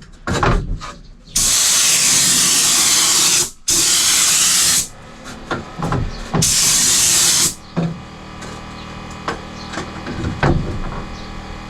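Three long hissing bursts of pressurized spray, each lasting one to two seconds, with light knocks and clicks from handling tools and materials between and after them.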